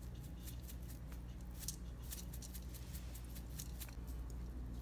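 Tajín seasoning being shaken from its plastic shaker bottle into a plastic cup: faint, irregular dry ticks and taps, over a low steady hum.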